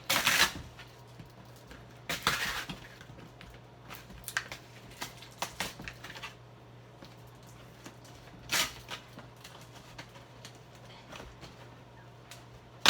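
A cardboard box being handled and pulled at while someone tries to open it: short scrapes, rustles and knocks, the loudest at the very start, about two seconds in and near nine seconds, with a steady low hum underneath.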